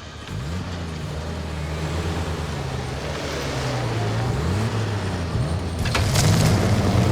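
Motor vehicle engine running under load, its pitch climbing and dropping back several times as it revs, growing louder. A short harsh noise cuts in about six seconds in.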